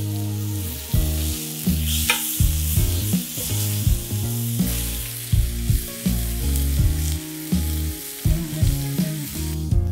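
Thin chicken cutlets sizzling steadily in hot oil in a cast-iron skillet, over background music with a steady beat.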